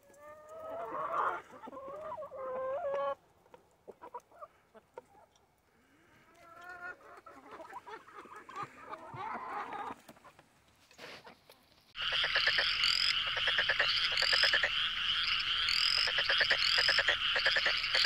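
Hens giving soft, bending clucks and murmurs in two short spells while feeding. About two-thirds of the way through, a sudden, louder, dense chorus of rapid trills and repeated high chirps starts and runs on.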